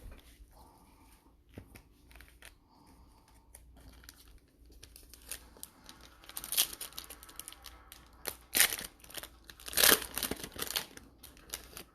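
Packaging being torn and crinkled open, the wrapping of a sealed football trading card box and pack, with soft rustling at first and several louder crinkles in the second half.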